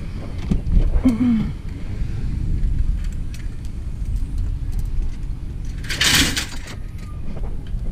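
Low steady rumble of a vehicle, with a few light knocks and one short loud rush of noise about six seconds in.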